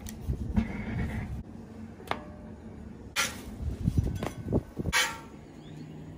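Metal spatula knocking and scraping on a steel flat-top griddle as bread is toasted. There are scattered sharp clicks, and two short scraping sweeps about three and five seconds in.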